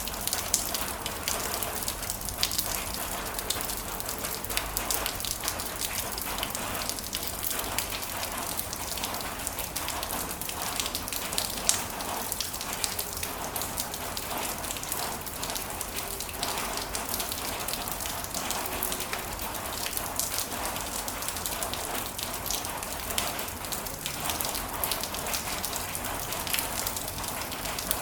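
Heavy rain falling steadily, a dense patter of countless individual drops.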